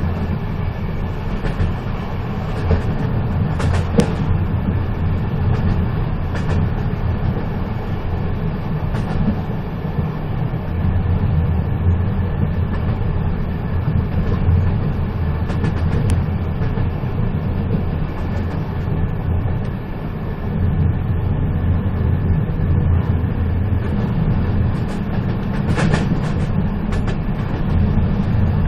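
A moving train running steadily with a low rumble, with a few sharp clicks and knocks heard over it.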